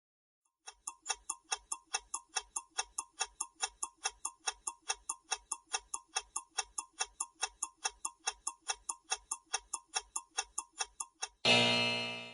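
Countdown-timer sound effect ticking steadily about four times a second for roughly ten seconds, counting down the answer time, then a loud time's-up chime that rings and fades over about a second near the end.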